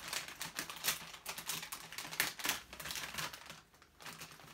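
Plastic packaging crinkling and crackling in quick irregular clicks as a squishy toy is unwrapped by hand, with a short lull near the end.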